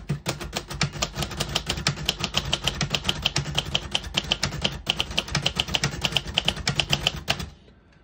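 1971 Royal Custom III manual portable typewriter being typed on at a quick, even pace: a steady run of keystroke clacks as the type bars strike the platen, several a second, stopping about seven and a half seconds in.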